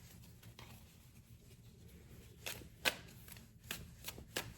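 Tarot cards being shuffled by hand: a run of about six soft, sharp snaps of card on card over the second half.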